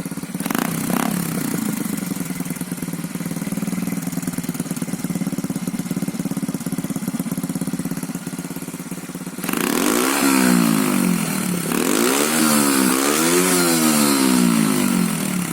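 Restored Honda Z50 minibike's small single-cylinder four-stroke engine idling steadily, with a quick blip of throttle about half a second in. From about nine and a half seconds in it is revved up and down repeatedly, louder than at idle.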